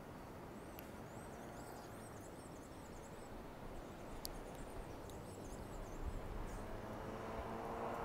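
A small bird singing quick runs of high, thin chirps, in two bouts, over a faint steady outdoor hum.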